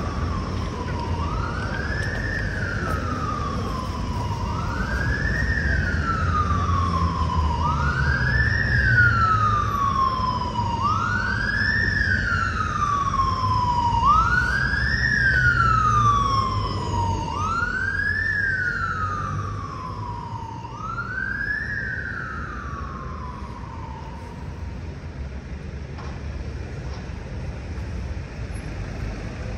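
Emergency vehicle siren on a wail setting: each sweep rises quickly and falls slowly, repeating about every three seconds. It grows louder toward the middle, then fades and stops a little past two-thirds of the way through, over a steady low traffic rumble.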